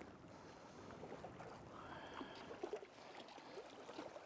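Faint lapping of shallow water at a rocky shore, with a few small splashes from a hooked Arctic char thrashing in the shallows at the angler's feet.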